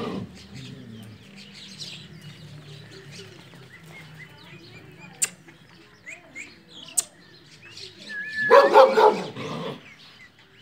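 Alshashan dog, a German shepherd and Bhagyari cross, barking a short run of barks near the end. Birds chirp faintly throughout, with two sharp clicks in the middle.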